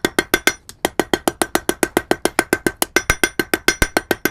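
Hand hammer striking hot iron flat stock on an anvil in rapid blows, about eight a second, each with a bright metallic ring. The iron is being drawn out into a longer taper. There is a brief pause about half a second in.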